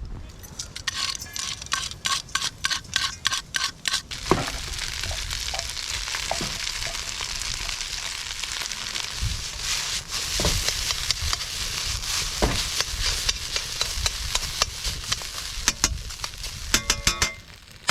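Steak frying in a pan over a campfire: dense popping and crackling for the first few seconds, then a steady sizzle with a few soft knocks, and a short burst of crackling near the end.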